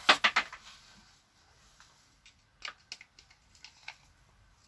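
Small objects being handled on a workbench: a quick run of sharp clicks at the start, then a few faint taps and ticks, and a sharp click at the very end.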